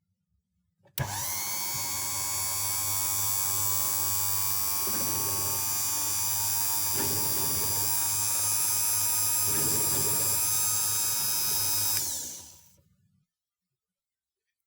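Cowells 90ME micro lathe's motor and spindle switched on, running steadily with a high whine, then switched off and winding down over about a second near the end.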